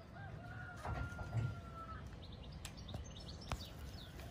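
A rooster crows faintly, one long drawn-out call of about a second and a half, followed by a few short high chirps from small birds.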